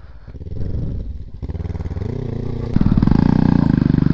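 Motorcycle engine revving under load as the bike tries to climb out of rocks it is stuck in. It runs lower at first, then gets much louder and stays up about three seconds in.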